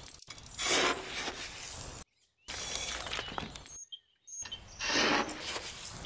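Small gravel stones scooped with a miniature metal shovel and tipped into a small steel bowl, rattling against the metal, with two louder pours about a second in and near the end.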